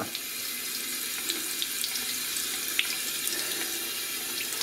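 A bathroom pillar tap running a thin, steady stream into a white ceramic basin, splashing off a waterproof glove held under it.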